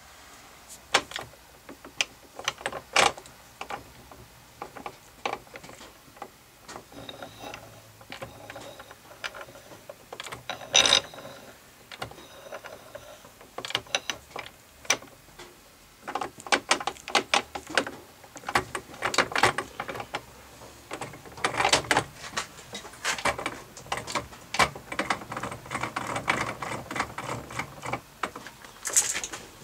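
Irregular metallic clicks and clunks from the mechanism of a homemade drill press being handled, louder and more frequent in the second half.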